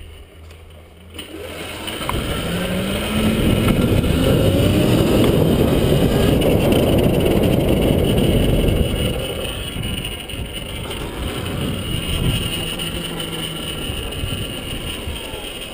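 Zero electric motorcycle pulling away and riding: a motor whine rising in pitch as it gathers speed, under a loud rush of wind noise that eases off about nine seconds in.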